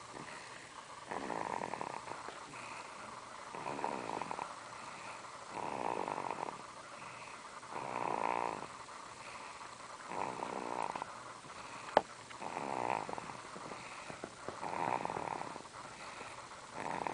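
Steady, rhythmic snoring of a sleeper, one snore about every two seconds, about seven in all. A single sharp click about twelve seconds in.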